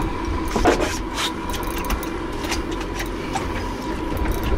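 Twin Yamaha V8 outboard engines idling steadily, a low rumble with a faint steady hum. A couple of light clicks sound in the first second or so.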